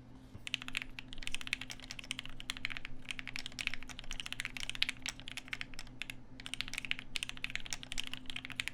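Typing sound test on a Tokyo Keyboards Alix40 mechanical keyboard with H1 switches: fast keystrokes in quick runs with short pauses, starting about half a second in.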